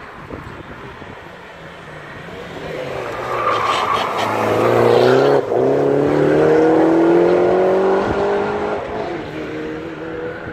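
Mini Cooper hillclimb race car accelerating hard out of a hairpin and up the hill, its engine note rising. The sound cuts off for an instant about five seconds in, at a gear change, then climbs again as the car pulls away and fades.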